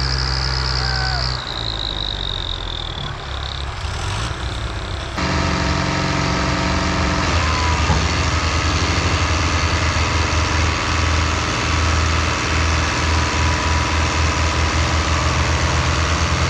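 Tractor diesel engines running hard, a steady pulsing throb, while hitched to a stuck trolley in mud. A high whine drops in pitch over the first few seconds, and about five seconds in the sound changes suddenly and grows louder.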